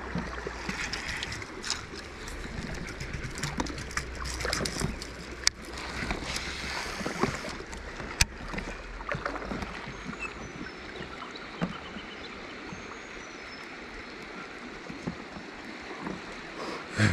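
River water running and lapping around a drifting raft, with scattered small knocks and clicks, most of them in the first half, and one sharp click about eight seconds in.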